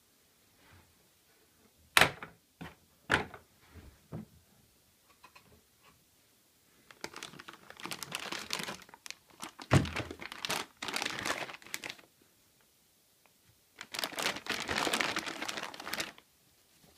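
Latches of a Hikoki plastic tool case snapping open with a few sharp clacks, then plastic wrapping and paper crinkling as the contents are handled, in two long stretches with a thud in the middle.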